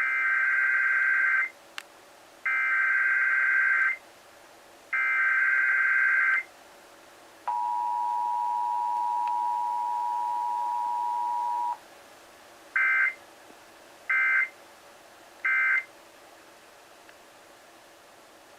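Emergency Alert System test: three bursts of screeching SAME data header tones, then the steady two-tone attention signal for about four seconds, then three short end-of-message data bursts.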